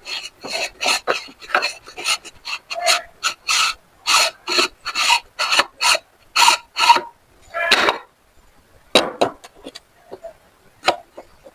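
Meat grinder crunching through a bell pepper: a run of rasping, crunching strokes, about two to three a second, that thin out to a few scattered ones after about eight seconds.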